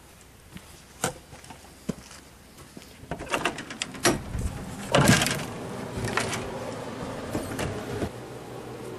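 Camper entry door being unlatched and opened: a few sharp latch clicks, a run of rattling clicks, then the loudest knock of the door about five seconds in.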